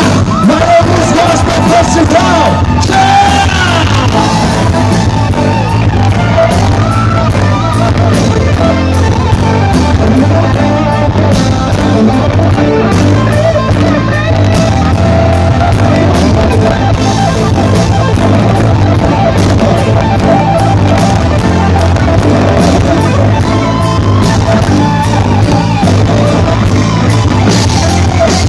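Loud live rock band playing: electric guitars, bass guitar and drums.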